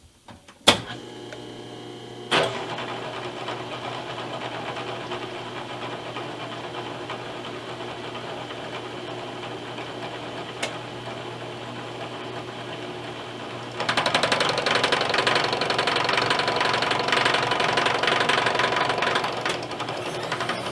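An electric power tool switched on with a click and running with a steady hum, with a sharp step up about two seconds in. About fourteen seconds in it becomes much louder and rougher as it cuts into the metal part, easing off near the end.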